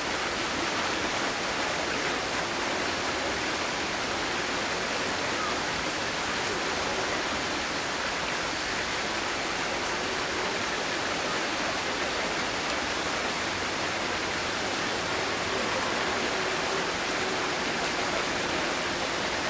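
Steady rush of falling water, an even hiss that does not change.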